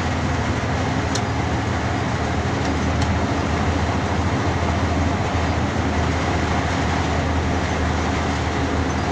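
Hino truck's diesel engine running under way, heard from inside the cab: a steady low drone mixed with road rumble from the dirt haul road.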